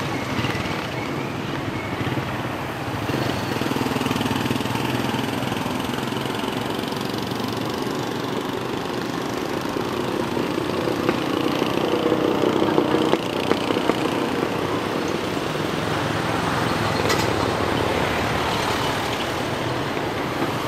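Steady roadside traffic noise, with vehicle engines running and passing; it grows a little louder about halfway through.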